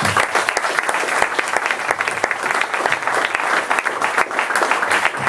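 Audience applauding, many hands clapping together at a steady level.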